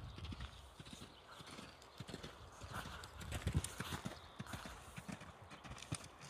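Hoofbeats of a horse cantering on a sand arena: a run of dull, irregular thuds.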